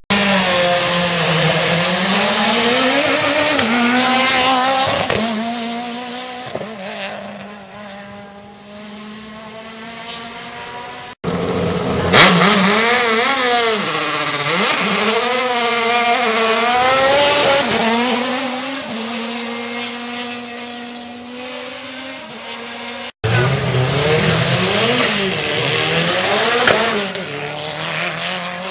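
Race car engines accelerating hard away, one car after another, revving high with the pitch climbing and then dropping at each gear change, and fading as each car pulls away. The sound cuts off abruptly twice as one car gives way to the next.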